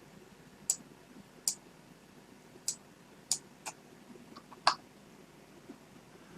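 Computer mouse clicking six times at irregular intervals, single sharp clicks, as menus are opened and options picked.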